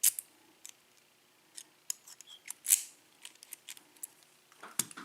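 Sharp clicks and small metallic clinks of padlocks and keys being handled, with a brief scrape nearly three seconds in.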